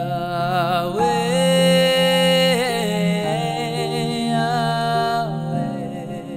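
A man singing a long phrase with vibrato over sustained pad chords. He holds a high note from about a second in, and his voice stops near the end while the chords ring on.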